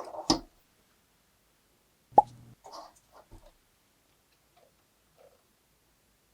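A short knock at the start, then one sharp plop about two seconds in, followed by a few faint soft taps.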